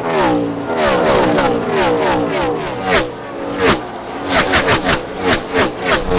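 NASCAR Cup Series stock cars' V8 engines at racing speed. The engine pitch falls repeatedly in the first few seconds, then a quick string of loud surges follows, like cars passing one after another in a pack.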